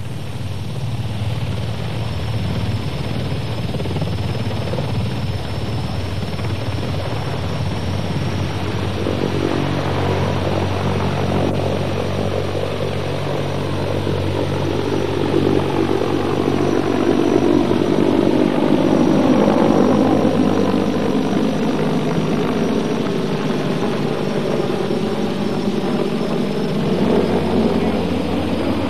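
Mil Mi-26 heavy-lift helicopter flying, its eight-bladed main rotor and twin turboshaft engines making a steady deep drone. It grows louder toward the middle as the helicopter comes closest, with a slow sweeping shift in its tone as it moves.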